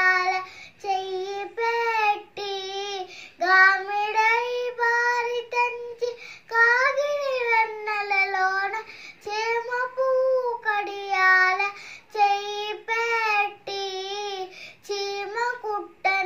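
A young girl singing a devotional song solo, without accompaniment: phrases with wavering, ornamented pitch, broken by short pauses for breath.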